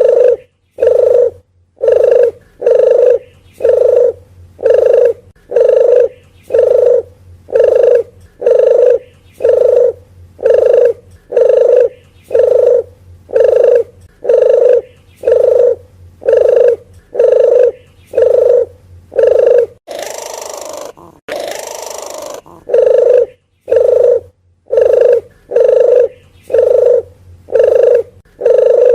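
Red collared dove (puter geni) giving a long run of short, deep cooing notes, about one a second. About twenty seconds in, the coos stop for two harsh, rasping bursts before the cooing resumes.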